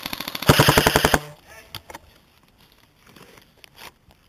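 Airsoft rifle firing one rapid full-automatic burst, about a second long, louder in its second half.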